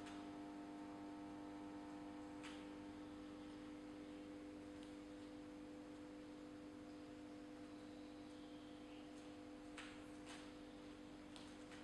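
Faint, steady mains hum from an 800 VA toroidal transformer under heavy load, its low-voltage secondary driving a high current through a rod that is heating to an orange glow. A few faint clicks come about two seconds in and again near the end.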